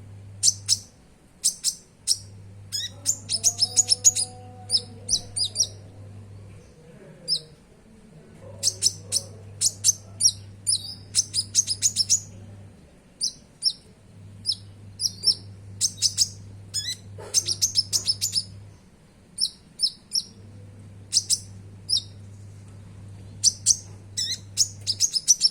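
A konin (sunbird) singing: quick clusters of high-pitched chirps and twittering trills separated by short pauses. A low hum underneath switches on and off every few seconds.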